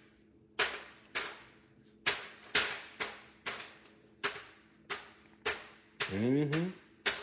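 Banana being sliced by knife over a foil pan: a run of sharp taps, about two a second, as the rounds drop into the pan. A short hummed voice note rises and falls about six seconds in.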